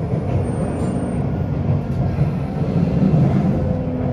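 Running sound of a Sotetsu 8000 series electric train from on board: a steady rumble of wheels and traction motors on the rails. A few steady tones from its Hitachi IGBT inverter motor drive come in near the end.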